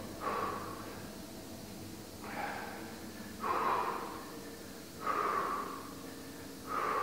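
A man breathing hard with exertion: five short, noisy exhales about every one and a half seconds.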